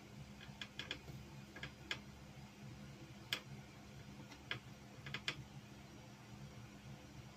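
Small 3D-printed plastic parts clicking and tapping against each other as they are handled in the fingers: a dozen or so light clicks in small clusters, the sharpest about a third of the way in, over a steady low hum.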